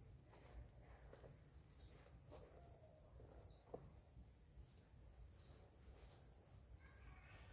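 Near silence: a faint, steady high-pitched insect trill from crickets or similar insects, with a few soft rustles and clicks.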